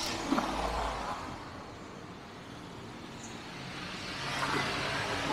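Honda Brio's small four-cylinder petrol engine on its first start after the rebuild: a low rumble for about the first second as it catches, then running steadily at idle.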